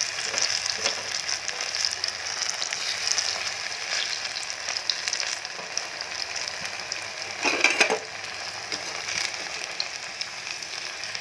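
Semolina pakora batter deep-frying in hot refined oil, with a steady crackling sizzle that grows briefly louder about three-quarters of the way through.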